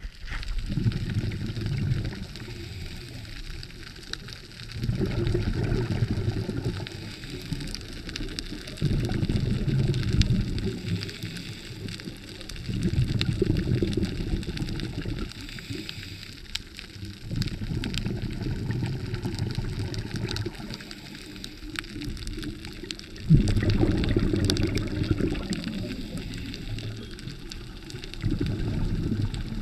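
Underwater scuba breathing: about every four seconds the regulator's exhaled bubbles rush and gurgle for about two seconds, about seven times, with quieter hissing between.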